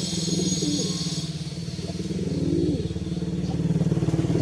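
A small engine idling steadily with an even, rapid pulse.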